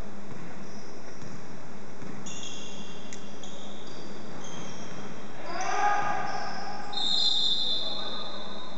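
Basketball sneakers squeaking on a hardwood gym floor as players cut and stop: a run of short, high squeaks, one after another, from about two seconds in, over the steady hubbub of a large hall.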